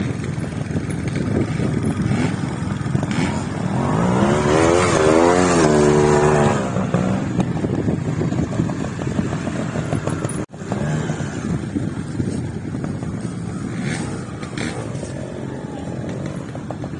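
Trials motorcycle engine working a steep hillside climb, revved up to its loudest about four seconds in and eased back a couple of seconds later. The sound breaks off sharply about ten seconds in and then carries on at a lower level.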